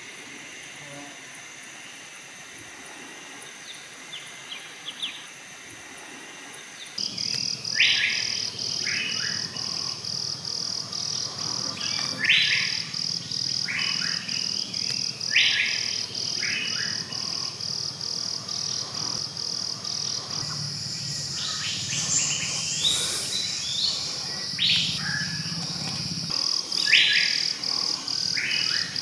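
Forest ambience: bird calls, short clear notes repeated every second or two, over a loud, high-pitched, rapid steady pulsing. Both begin abruptly about seven seconds in, after quieter background ambience.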